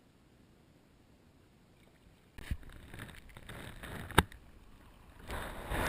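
Water splashing and sloshing around a kayak, starting suddenly a little over two seconds in after near quiet, with one sharp knock about four seconds in as the loudest sound. The splashing grows louder near the end.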